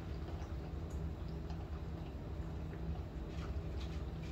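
Typhoon wind and rain heard from inside a building: a steady low rumble of wind with scattered light ticks of raindrops.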